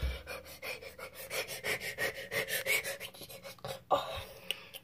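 A person panting quickly close to a phone's microphone, a fast even run of short breaths that dies away after about three and a half seconds. A single sharp knock about four seconds in, as the phone is handled.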